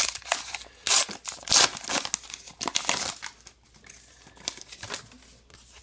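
Baseball card pack wrapper being torn open and crinkled: a run of sharp, papery crackles and rips, loudest in the first two seconds. After that come softer, sparser rustles as the stack of cards is taken out and handled.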